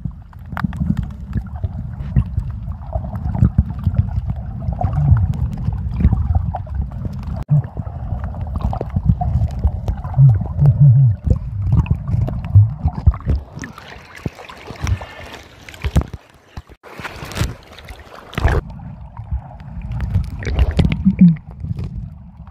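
Muffled underwater sound of snorkeling heard through a submerged camera: a low, uneven rumble of moving water and bubbles, with a brief louder rush of water about eighteen seconds in.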